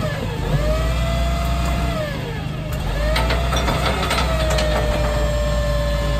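Side-loading garbage truck's engine and hydraulic pump whining as its automated arm grips and lifts a wheelie bin. The whine's pitch drops and rises again twice over a steady low engine rumble. A cluster of clanks and rattles comes about three to four and a half seconds in.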